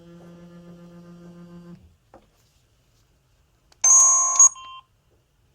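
Samsung SGH-C260 phone playing its polyphonic Yamaha SMAF ringtones: a held low synthesized note fades out about two seconds in, then after a pause a short, loud burst of bright synthesized tones sounds for under a second near the end.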